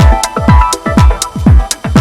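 Electronic dance music with a steady kick drum at about two beats a second, hi-hat ticks and sustained synth chords.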